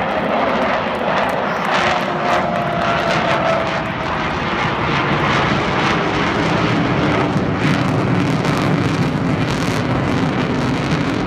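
Avro Vulcan XH558's four Bristol Olympus turbojets in flight during a display pass: a loud, steady jet noise with crackle, a whistling tone that slides down in pitch a few seconds in, and a lower tone coming through later.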